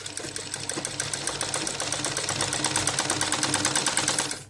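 Sewing machine stitching a seam through cotton fabric, running at a steady fast rate with a rapid, even clatter of the needle, then stopping near the end.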